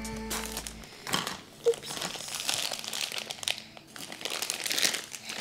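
A crinkly foil blind-bag packet rustling and crackling as it is cut with scissors and pulled open by hand, with one sharper snap about a second and a half in.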